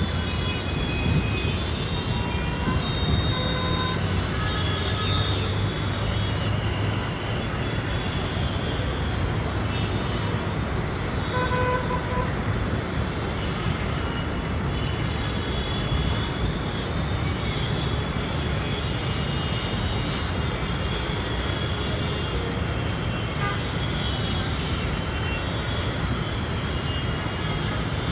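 Steady road traffic noise from engines and tyres, with several short vehicle horn toots scattered through it.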